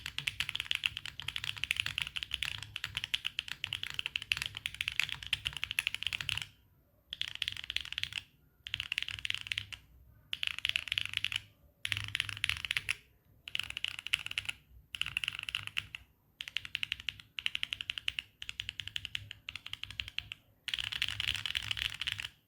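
Mechanical keyboard being typed on fast, with Gateron Jupiter Banana tactile switches in a carbon-fibre plate with no foam, giving a clacky keystroke sound. The typing is continuous for about six seconds, then comes in short bursts of rapid keystrokes with brief pauses between them.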